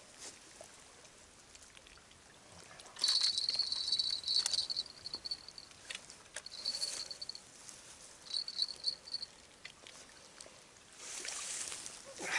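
Cobra fishing reel on a bottom rod being cranked in three short spurts, a high rattling whir as line is wound in. Near the end comes a brief spell of water splashing.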